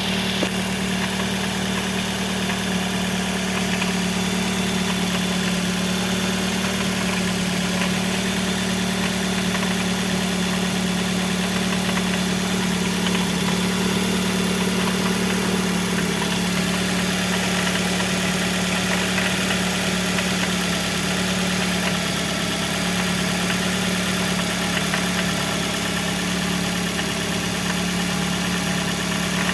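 Nissan QR20DE 2.0-litre inline-four engine idling steadily with a constant hum. A faint extraneous noise runs through it, which the owner hears when the engine is cold.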